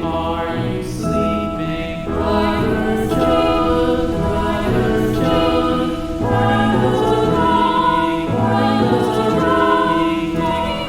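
Slow, relaxing music with choir-like voices singing long held notes that change every second or so.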